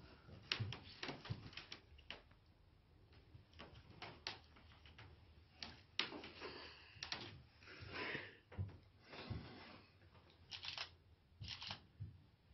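Hushed room with faint, scattered short clicks and soft rustling, irregularly spaced, with a cluster of rustles in the middle.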